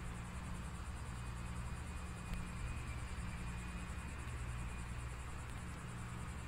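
Faint steady ambient sound at a rocket launch pad: a low hum with a high, fast chirring of insects over it.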